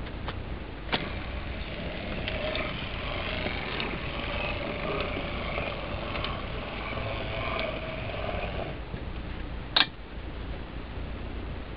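HO-scale MDC Roundhouse 0-6-0T tank locomotive running along the track, its Pittman motor and gears whirring over a steady low hum. The whirring stops about three-quarters of the way through, followed by a single sharp click.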